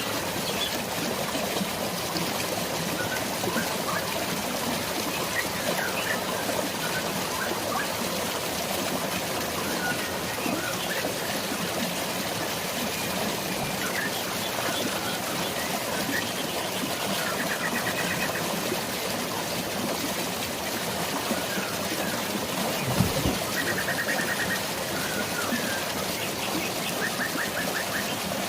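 Steady hiss of drizzling rain and flowing water, with birds chirping throughout and a few short, rapid trills in the second half. A single low thud sounds about 23 seconds in.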